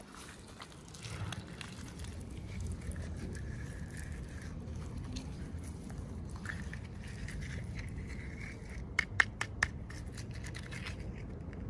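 Hands handling toy packaging: steady scraping and crinkling, with a quick run of three or four sharp clicks about nine seconds in.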